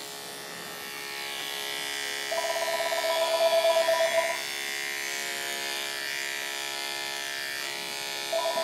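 Andis ProClip Super 2-Speed electric dog clippers with a 10 blade, running with a steady buzz while clipping a dog's coat. The buzz grows louder for about two seconds, starting about two seconds in, and again near the end.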